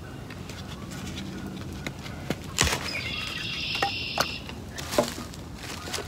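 Dry sticks snapping and knocking as firewood is handled, with two sharp cracks, one about two and a half seconds in and one about five seconds in. A high, steady call is held for over a second about three seconds in.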